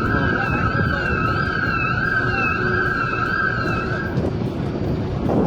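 Siren wailing in a fast up-and-down warble with a steady high tone sounding alongside it, over a heavy rushing noise. The siren cuts off about four seconds in.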